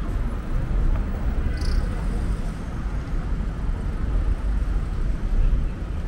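Busy city street ambience: a steady rumble of road traffic with the murmur of passers-by's voices and a short high squeak about a second and a half in.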